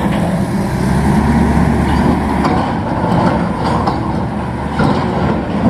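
Diesel engine of heavy construction machinery running steadily under work, with a few faint knocks.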